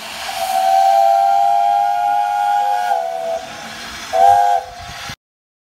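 Steam whistle blowing one long blast of about three seconds, then a short loud toot, over a hiss of steam; the sound cuts off abruptly near the end.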